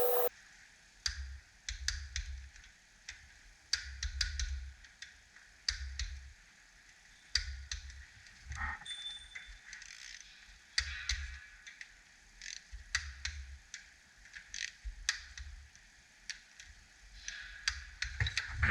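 Ratchet wrench clicking in short strokes as bolts are tightened on an engine cover, with light knocks of metal tools in between.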